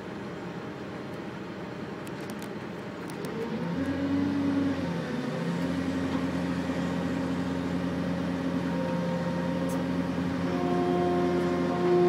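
Heavy logging machine's diesel engine running, revving up about three and a half seconds in and holding at the higher speed as it works. A higher whining tone joins near the end.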